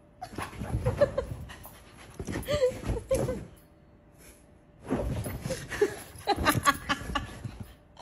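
Husky making short whining, talking-like vocal sounds mixed with panting, in three bursts with a quiet gap about four seconds in.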